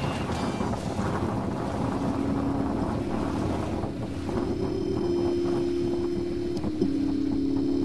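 Wind on the microphone and water rushing past a sailboat's hull under sail, a steady noisy wash. Steady low tones come in about two seconds in and are joined by a higher one about halfway, with a single click near the end.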